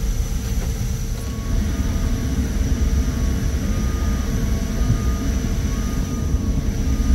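Airliner cabin noise inside an Airbus A350-900 before departure: a steady low rumble and hum from the aircraft's air and electrical systems, with a thin high whine.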